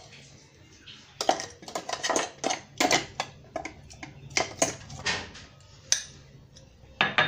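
A spoon scraping and knocking against a stainless-steel mixer-grinder jar and a glass bowl as ground paste is scooped out. It is a run of sharp clinks and scrapes, about a dozen, starting about a second in.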